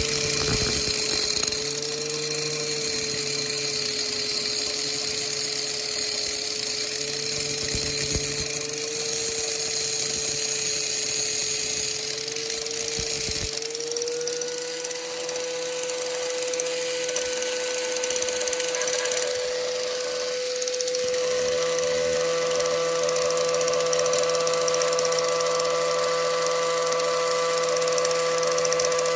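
Warrior corded angle grinder with a grinding wheel running. For about the first 13 s its whine sags and wavers under load as the wheel cuts into metal. Then it settles into a steady, slightly higher whine as it runs free.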